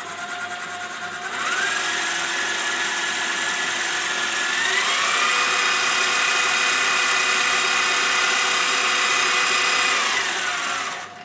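Titan TM20LV milling machine's DC spindle motor starting up and running with a steady whine. Its pitch climbs about a second and a half in, steps higher about five seconds in as the speed is turned up to roughly 1,000 rpm, then winds down and stops near the end.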